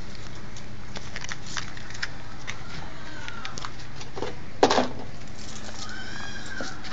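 Small puppy sounds over a steady background hum: scattered light clicks, one short louder noise a little past the middle, and a brief high squeak near the end.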